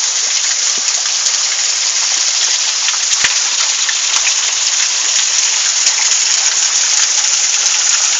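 Waterfall: a loud, steady rush of falling water with scattered small splashes.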